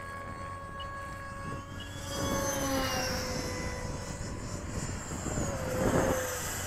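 Electric ducted-fan whine of a Freewing F-104 model jet flying past. It swells about two seconds in, its pitch falls as it goes by, and it is loudest just before the end.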